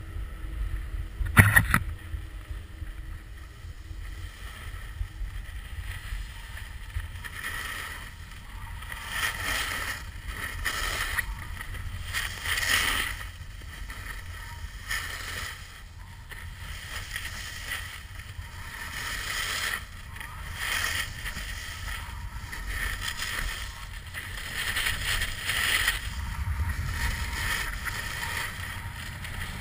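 Snowboard sliding and carving on packed snow: a hiss of the board that swells and fades with each turn, over a low wind rumble on the microphone. A sharp knock about a second and a half in is the loudest sound.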